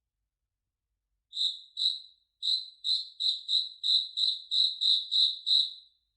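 Cricket chirping: short, clear, high-pitched chirps repeated about three times a second, starting about a second in after a silence, with a brief pause after the first two.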